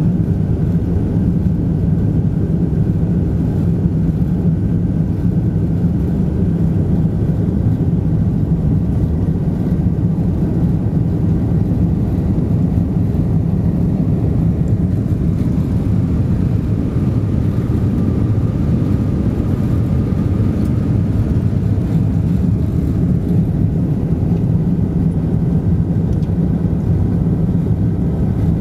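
Steady low roar of a Boeing 747-219B's four Rolls-Royce RB211 turbofans and the airflow, heard inside the cabin during the climb after takeoff. A faint high whine rises out of the roar about halfway through and fades again.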